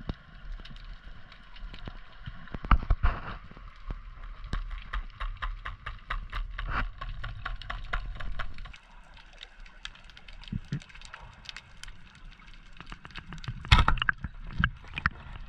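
Underwater sound from a diver's camera: a low rumble with irregular small clicks and crackles throughout, and two louder clusters of knocks, about three seconds in and near the end, as the spearfishing gear is handled.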